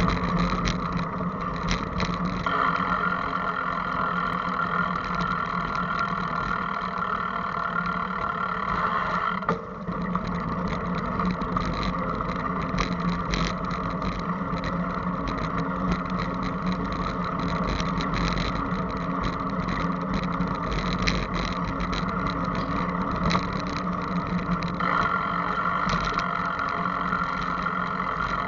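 Riding noise picked up by a camera mounted on a moving bicycle: a steady hum with frequent small clicks and rattles from bumps in the path.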